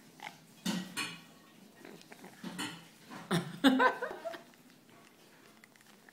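A yellow-headed amazon parrot's beak knocking and clinking against a small ceramic coffee mug, in a few short bursts. The loudest comes a little over halfway through, together with a brief pitched, voice-like sound.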